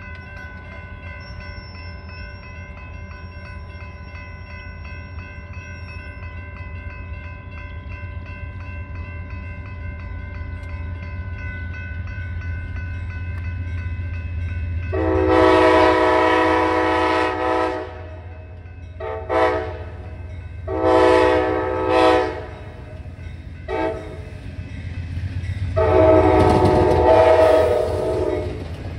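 Grade-crossing bell ringing steadily while an Amtrak P42DC Genesis diesel locomotive approaches, its low engine rumble growing louder. About halfway through, the locomotive's air horn sounds a series of long and short blasts for the crossing, ending in a long blast as it reaches it.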